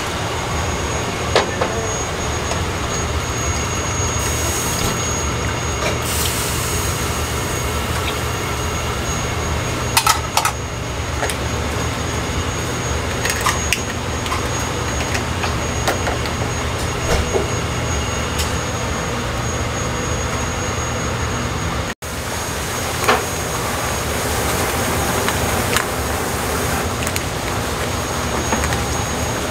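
Steady noise of a commercial kitchen's gas burners heating black earthenware pots, with scattered short clinks and knocks of the pots and metal utensils.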